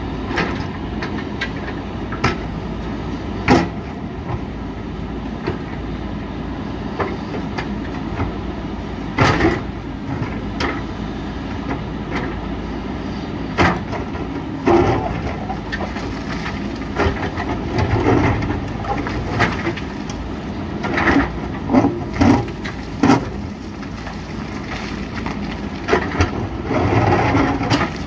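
JCB 3DX backhoe loader's diesel engine running steadily under work, with irregular sharp knocks and clatter from the bucket working rock. The knocks come more often and louder in the second half.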